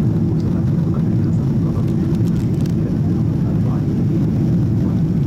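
Steady in-flight cabin noise of an Airbus A380 airliner: an even, dense low rumble of engines and airflow heard from inside the cabin by a side window.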